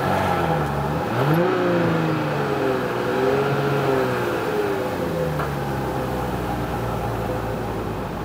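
Audi Q7 55 TFSI e's 3.0-litre turbocharged petrol engine running, heard at the exhaust tip. About a second in the revs rise, waver, then ease back toward idle.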